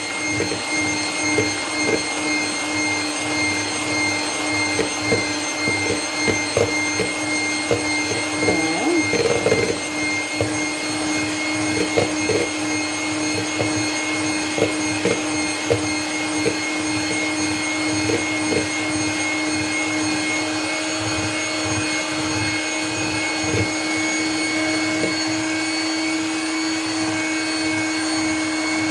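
Electric hand mixer running steadily at a constant pitch, its beaters whipping cream stiff in a metal bowl. The beaters knock against the bowl in irregular clicks, most often in the first half.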